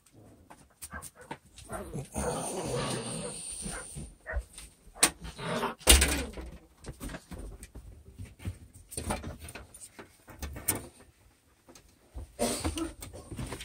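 Close-up sounds of a labradoodle being petted, with fur rubbing and scraping against the phone's microphone, scattered small clicks and one loud knock about six seconds in.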